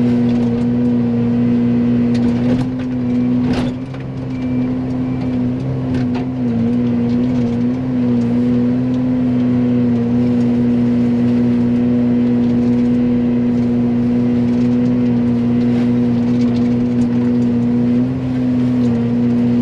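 Excavator running hard with its Fecon forestry mulcher head spinning: a loud, steady droning whine whose pitch sags and wavers briefly a few times as the drum bites into brush, with a few sharp knocks in the first several seconds.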